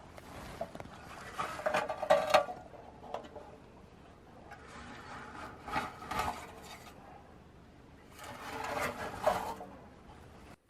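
Blueberry bushes rustling and scraping as berries are picked from them by hand, in three bouts of a second or two each.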